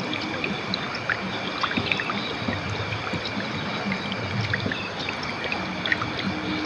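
River water flowing: a steady rush with many small splashes and trickles throughout.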